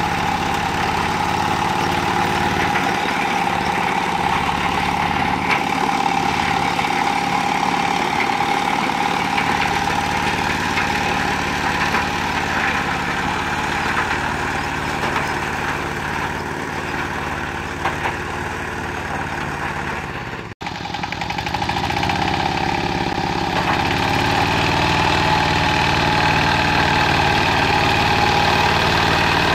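Zubr 15 hp mini tractor's diesel engine running steadily under load as it drives a rear rotary tiller through garden soil. The sound breaks off for an instant about two-thirds of the way through, then carries on.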